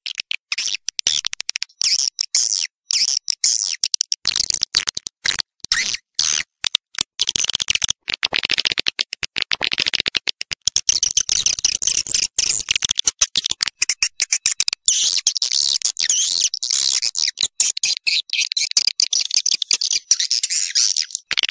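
Swiftlets twittering: dense, high-pitched chirps broken into rapid stuttering pulses. This is a swiftlet call recording of the kind played to draw swiftlets into a nesting house and get them to roost.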